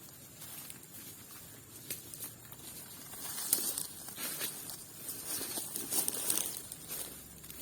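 Irregular rustling and crackling of dry leaves and twigs being disturbed on a forest floor, growing louder and busier from about three seconds in.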